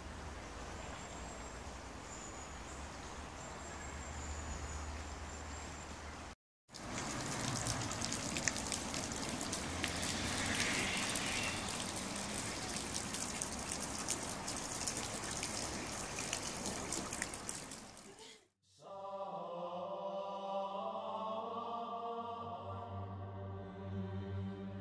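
Outdoor ambience, then, after a cut, water splashing steadily from a stone fountain spout. After a second cut, about three quarters of the way in, choral chanting music starts and carries on.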